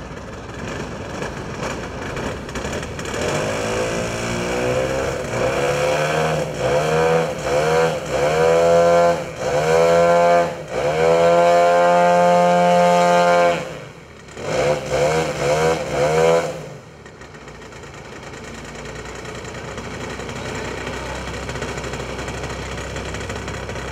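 Large RC model plane's engine being run up on the ground: revved up and down in repeated throttle blips, held at high revs for a couple of seconds past the middle, then dropped back to a steady low idle for the last several seconds.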